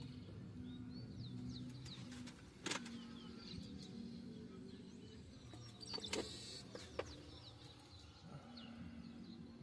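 Small birds chirping in short calls against a low, steady hum that comes and goes, with three short knocks: one near three seconds in and two close together about six and seven seconds in.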